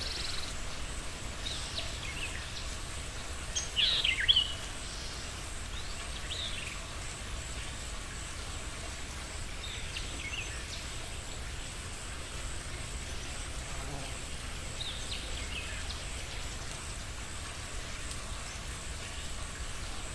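Steady low background hum with scattered short, high, downward-sweeping chirps; a small cluster of chirps about four seconds in is the loudest.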